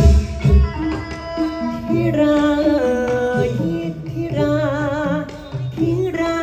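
Thai likay theatre singing with Thai instrumental and drum accompaniment. A voice holds long notes, one of them wavering strongly about halfway through, and heavy drum strokes sound in the first half-second.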